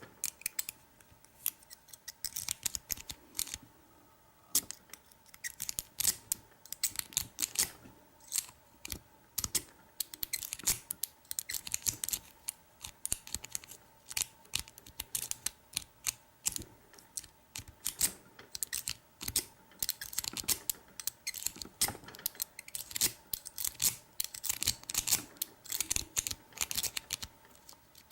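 Lock-pick rake worked in and out of a pin-tumbler lock cylinder with a Kwikset keyway, the pins clicking and scraping in quick irregular bursts; the lock has not yet opened.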